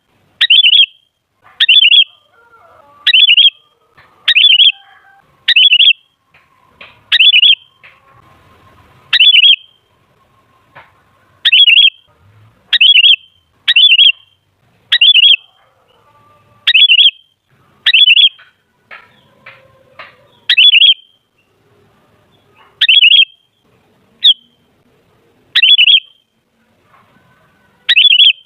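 Sooty-headed bulbul (kutilang) giving short, loud, repeated calls, about one a second with a few brief pauses.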